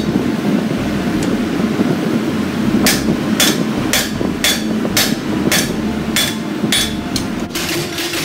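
Hand-held forging hammer striking a hot steel sword blade on an anvil, with about a dozen blows at roughly two a second starting about three seconds in, each with a short metallic ring. A steady low rumble runs underneath throughout.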